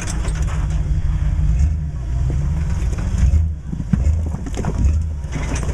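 Rock-crawler buggy's engine running low and steady as the buggy crawls up a rock ledge, with a few short knocks over the rumble.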